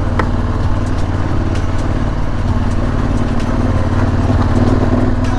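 KTM 1190 Adventure R's V-twin engine running at steady low revs while the motorcycle climbs a gravel track.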